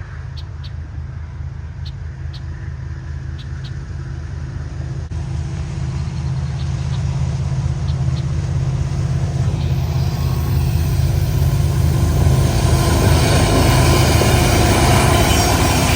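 Diesel freight locomotives approaching, their steady low engine rumble growing louder. A broad rushing noise builds over the last several seconds as the train nears. A few short high chirps are heard in the first half.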